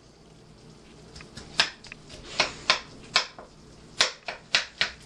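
A spatula striking and scraping a stainless steel skillet as browning ground beef is chopped up and stirred. The sharp strikes begin about a second and a half in, irregular at first and coming faster near the end.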